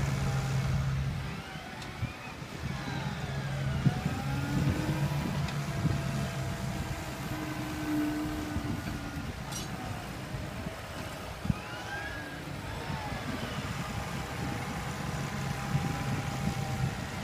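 New Holland tractor's diesel engine running steadily under load while pulling a reversible plough through stubble, with a low steady drone.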